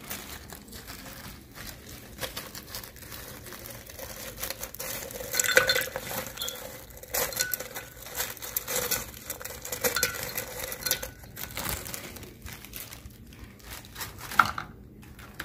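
Ice cubes dropped by hand into a glass blender jar of pineapple juice, clinking irregularly against the glass. The knocks are loudest and thickest in the middle, with one sharp knock near the end.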